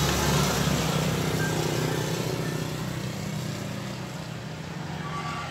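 Motor vehicle passing on the road, its engine hum fading as it moves away. Near the end a steady high tone starts.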